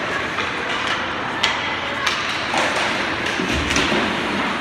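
Ice hockey play in a rink: sharp clacks of sticks and puck, the loudest about a second and a half in, and a deeper thud a little past halfway, over a steady echoing rink hubbub.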